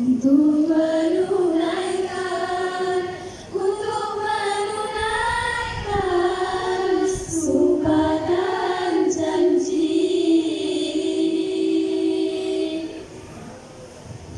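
Women's choir singing a patriotic song with long held notes, ending on a sustained final note that stops about a second before the end.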